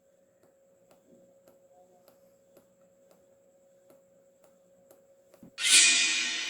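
A faint steady hum with soft ticks about twice a second. About five and a half seconds in, a loud transition sound effect hits suddenly and then rings and fades.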